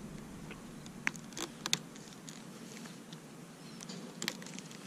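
A few light, sharp clicks and snaps from hand cutters being worked at a zip tie on a motorcycle's wiring harness, grouped about a second in and again near the end, over a faint steady low hum.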